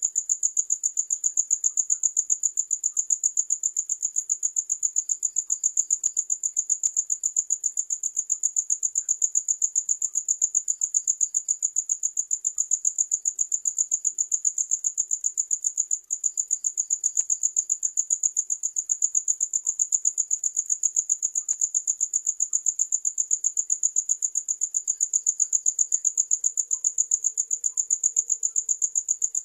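Cricket chirping: a high-pitched, rapid and even chirp repeating steadily without a break.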